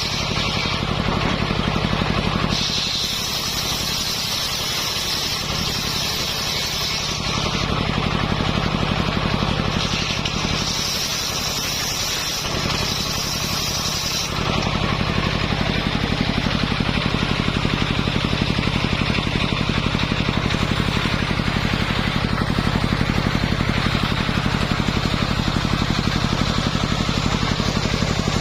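Engine-driven mobile circular sawmill running steadily, with a higher hiss from the blade cutting coconut-palm wood in stretches through the first half; after about fourteen seconds only the steady engine sound remains.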